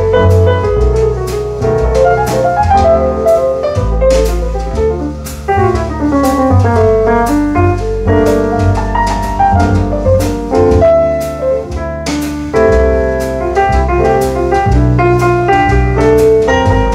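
Instrumental jazz with piano to the fore, playing runs of notes over bass and drums.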